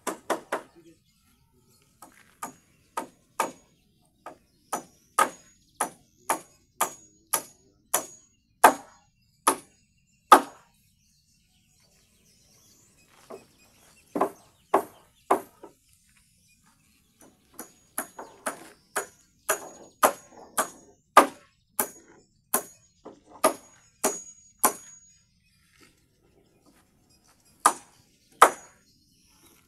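Hammer driving nails into timber: runs of sharp strikes about two a second, many with a short metallic ring, broken by brief pauses between nails.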